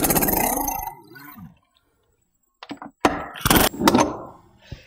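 Impact wrench hammering lug nuts off the spare tire in a fast, even rattle that dies away about a second in. From about three seconds in come several knocks and thuds as the heavy spare tire and wheel are lifted off the tailgate carrier.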